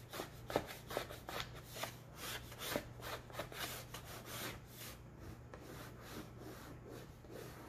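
White chalk scratching on black poster board in a quick series of short drawing strokes, which grow sparser and fainter about five seconds in. A steady low hum lies underneath.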